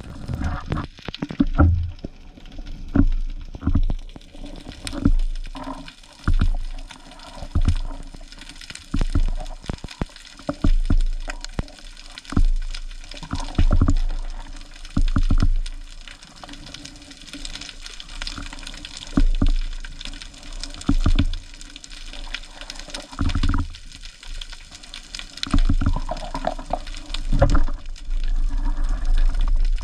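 Water surging and sloshing around a spearfisher's camera, in low swells about every one to two seconds, with sharp clicks and knocks.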